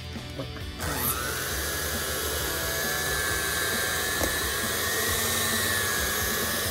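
Electric hand mixer running with its beaters in mashed potatoes in a stainless steel bowl. The motor's whine climbs about a second in, then holds steady.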